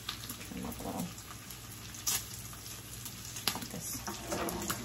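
Bacon frying in a square griddle pan on a gas burner: a steady sizzle with a few sharp pops of spitting fat.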